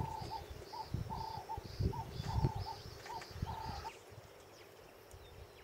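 A bird calling one short note over and over, about twice a second, with low rumbling thuds underneath. The calls stop about four seconds in.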